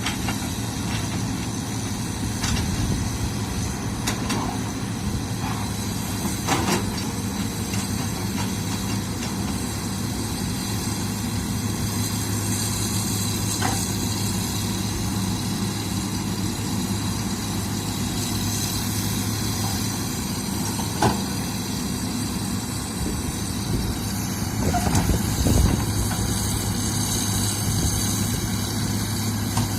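Heavy diesel machinery engine running steadily at a constant speed, with a few sharp knocks or clanks scattered through, the loudest about two-thirds of the way in and a louder patch of knocks a few seconds later.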